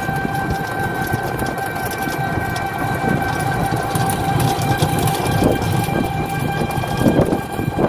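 Battery e-rickshaw (toto) riding along a rough rural road: its electric drive gives a steady high whine over the rumble and rattle of the body and the road.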